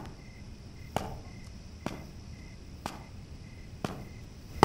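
Soft, evenly spaced knocks about once a second, over crickets chirping steadily.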